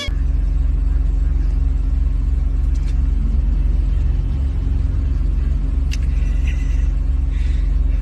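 A steady, loud low hum and rumble, like an engine or motor running, with a few faint brief sounds over it.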